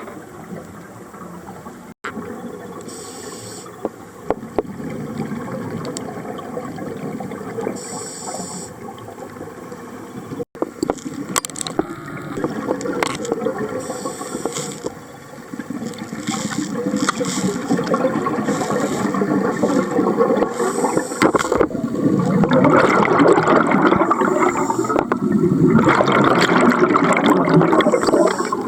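Scuba diver breathing underwater through a regulator: a short hiss with each inhalation every few seconds and a gurgling rush of exhaled bubbles. The bubbling grows louder in the last several seconds.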